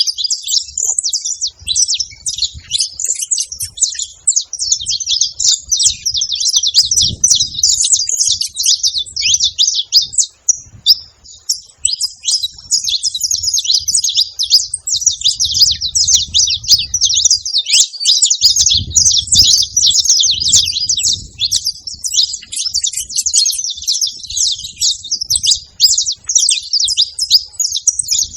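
Saffron finch (canário-da-terra) chirping continuously: a loud, dense stream of high twittering notes, thinning briefly about ten seconds in.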